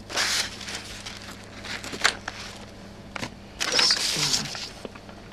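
Paper rustling and crinkling in several short bursts as a sheet of paper is handled and moved, with a single light click a little past the middle.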